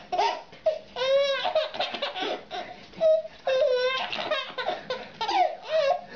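Baby crying in a string of short, high-pitched wails that rise and fall in pitch, with brief catches of breath between them.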